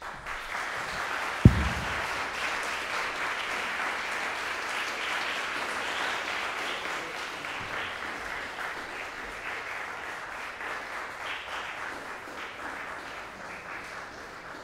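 Audience applause, a dense steady clapping that eases off slightly toward the end. A single sharp, loud thump about a second and a half in.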